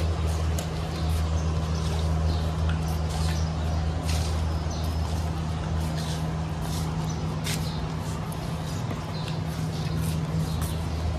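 Steady low mechanical hum, with scattered light ticks and faint high chirps over it.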